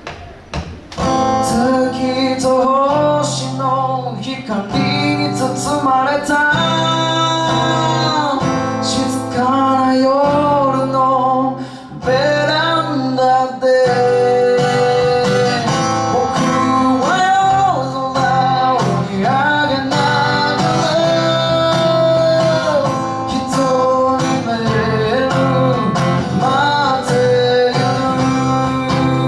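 A small live band begins a song about a second in: a male voice singing over a strummed acoustic guitar, with electric guitar and bass and no drums.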